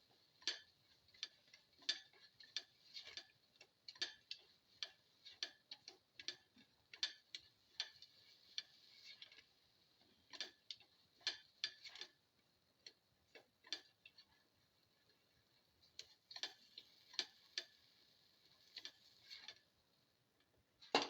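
A cooking utensil tapping and scraping against a pan while potato pieces are stirred: irregular sharp clicks, about one or two a second, with a couple of short pauses.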